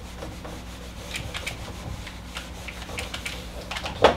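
Whiteboard eraser wiping marker off a whiteboard in a series of short rubbing strokes, with a louder knock near the end.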